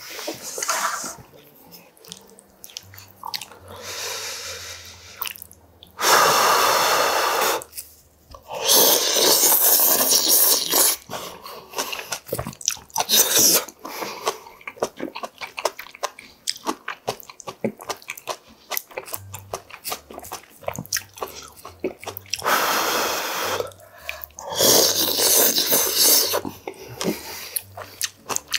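Loud slurping of yukgaejang broth from a wooden spoon, in long slurps about six seconds in, around nine seconds in and several near the end, with chewing and small clicks of the spoon in the steel bowl between them.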